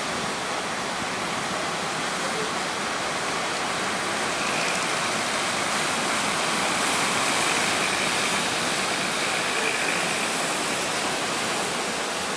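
Steady rushing of heavy surf breaking, swelling a little in the middle.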